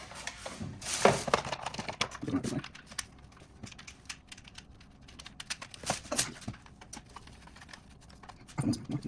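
Fast, irregular plastic clicks and rattles from an engine wiring harness being handled and fitted back onto the engine, with a few louder knocks about a second in and near the end.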